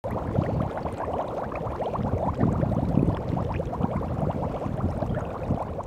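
Shallow floodwater lapping and gurgling at the edge of a paved surface, many small splashes close together.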